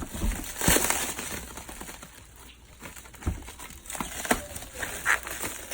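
Packing material being pulled open and handled: irregular crinkling, crunching and rustling with a few sharp clicks.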